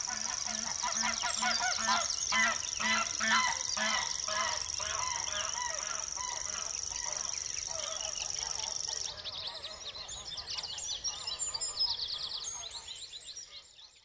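Geese honking in a run of repeated calls over a steady high insect buzz. The buzz stops about nine seconds in, leaving small birds chirping as the recording fades out at the end.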